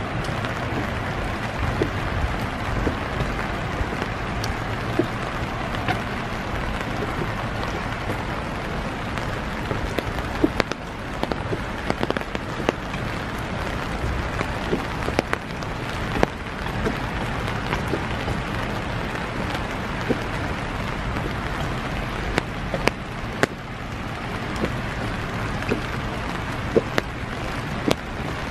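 Steady rain hissing, with irregular sharp ticks scattered through it.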